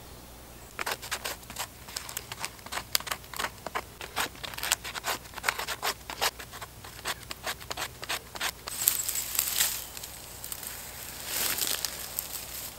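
A knife blade scraping birch bark in quick, repeated strokes, shaving it into fire tinder, beginning about a second in. Near the end comes a longer rustling of dry dead bracken being pulled up.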